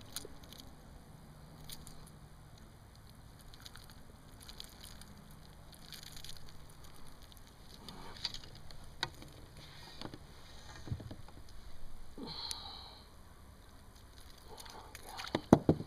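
Handling noise from unhooking a largemouth bass from a crankbait: scattered small clicks and rustles, with a few sharp knocks near the end.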